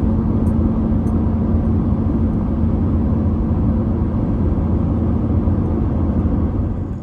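Paramotor's two-stroke engine running steadily at low throttle, warming up.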